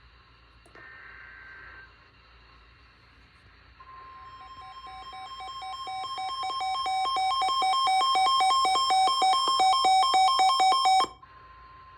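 Emergency Alert System flood-warning alert: a short burst of buzzing data-header tones, then the steady warning tone starting about four seconds in. Loud, rapid beeping joins it, grows louder, and cuts off suddenly about eleven seconds in, while the steady tone holds on.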